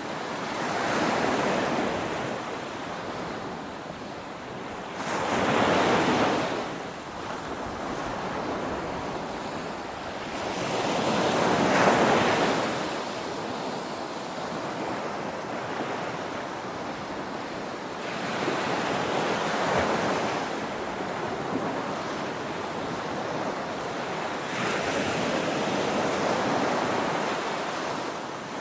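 Small ocean waves breaking and washing up on a sandy shore, a surge of surf every six seconds or so, the loudest about halfway through, with a steady hiss of water between.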